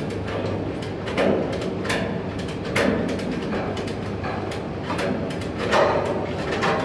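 Shipyard metalwork noise: irregular metal knocks and clanks, roughly one a second, over a steady low machine hum.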